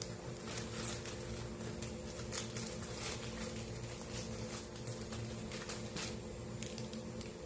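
Bacon strips frying in olive oil in a pan: irregular sizzling crackles and pops over a steady low hum.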